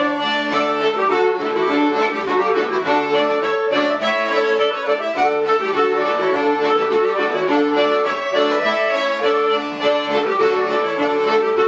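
Fiddle and button accordion playing a lively folk tune together, with quick running notes over a steady bass.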